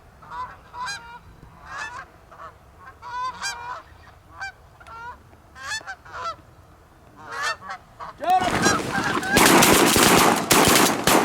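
Repeated goose honks, short and bending in pitch, then about eight seconds in a rapid volley of shotgun blasts from several guns, many shots close together and much louder than the honking.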